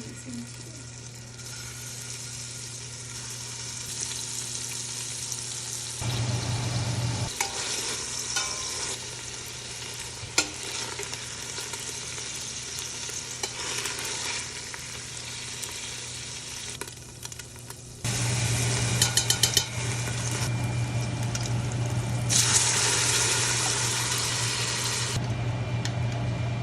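Small pork meatballs frying in butter and oil in a pan, a steady sizzle with some stirring. The sizzle steps louder a couple of times, and there is a quick run of clicks about two-thirds of the way through.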